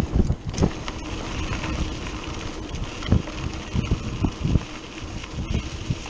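Wind buffeting the microphone of a camera mounted on a mountain bike riding down a dirt trail, with irregular low thumps as the bike rolls over the bumps.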